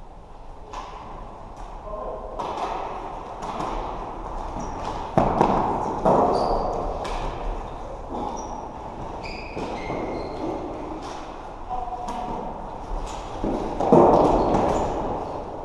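Floorball play in a sports hall: plastic ball and sticks clacking, with knocks against the rink boards and sneakers squeaking on the court floor. Players call out over it, with louder surges about five, six and fourteen seconds in.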